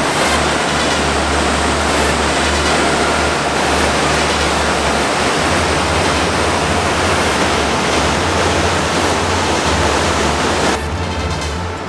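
Rapids of the South Fork Yuba River rushing, with the river running high and fast after weeks of heavy rain. The rush is a loud, steady noise that eases off shortly before the end.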